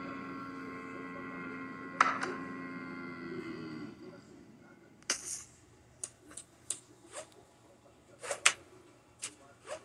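A man's long, drawn-out shouted "yeah", held on one pitch and cut through by two sharp clicks, ending about four seconds in. Then a scattering of about ten short, sharp clicks and taps at irregular intervals.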